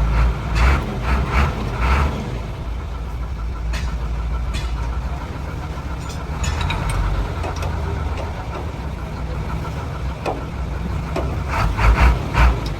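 A vehicle engine running steadily at idle, a low continuous rumble, with a few short louder bursts in the first couple of seconds and again near the end.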